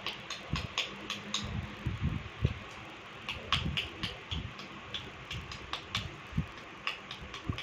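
Steady fan-like background noise with irregular light clicks and taps, several a second.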